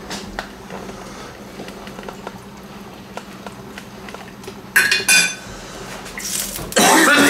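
A metal spoon clinks twice against the frying pan about five seconds in. Near the end comes a loud scraping rattle as the pan of salt cod in oil is moved and shaken on the glass induction hob.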